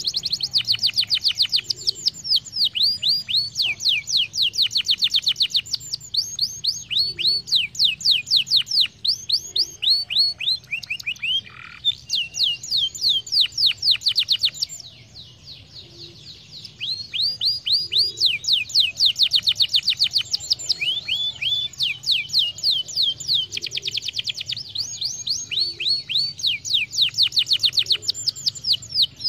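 Domestic canary singing in long, fast trills of quick downward-sweeping whistled notes, with a short pause about halfway through before the song resumes.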